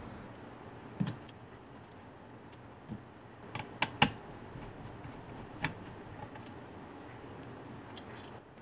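A few short, sharp clicks and taps of a small screwdriver and a hard M.2 NVMe SSD as the drive is unscrewed and lifted from its slot on a laptop's logic board, the loudest click about four seconds in, over a faint steady hiss.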